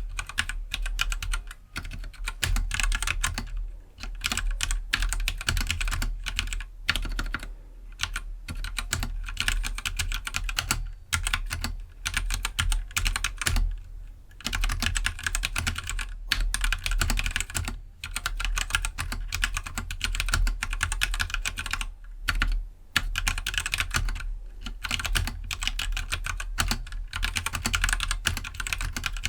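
Typing on a Keydous NJ68 65% mechanical keyboard with stock Gateron Black linear switches: rapid, continuous keystrokes with a few brief pauses.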